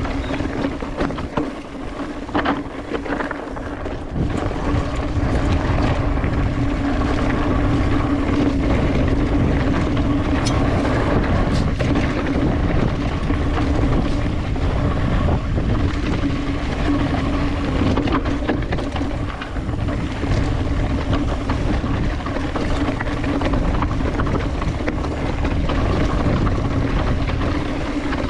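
Mountain bike riding fast down a dirt trail: wind buffets the microphone over steady tyre rumble, with scattered clicks and rattles from the bike over rough ground.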